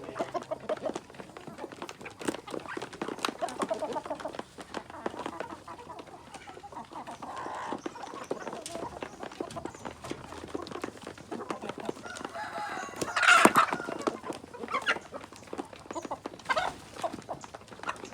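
A flock of native free-range kampung chickens clucking, with many short sharp clicks and one louder call about two-thirds of the way through.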